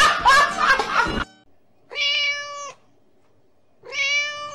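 Background music cuts off about a second in, followed by two cat meows, each steady in pitch and just under a second long, about two seconds apart.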